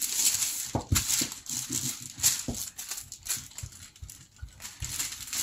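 Wooden rolling pin rolled back and forth over cookie dough sandwiched between two sheets of baking paper: the paper crinkles and rustles, with irregular light knocks.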